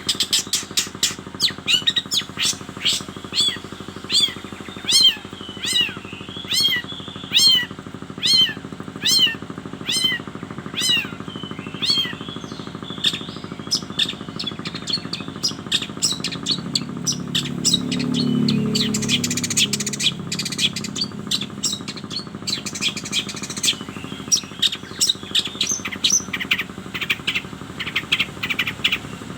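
Cendet (long-tailed shrike) calling over and over in short arched chirps, cat-like by the title's account: about one or two a second at first, then quicker and denser. A low hum swells and fades about halfway through.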